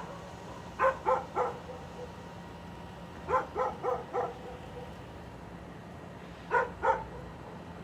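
A dog barking in short bouts: three quick barks about a second in, four or five in the middle, and two more near the end.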